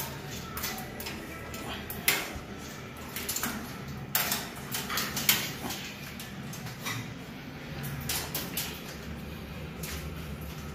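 Stainless-steel wire dog cages rattling and clanking in scattered metallic knocks, a few of them sharper and louder.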